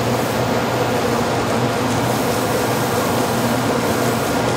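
Shinkansen Class 923 'Doctor Yellow' inspection train (a 700-series-based set) at the platform: a steady hum with a few low held tones under an even rushing noise.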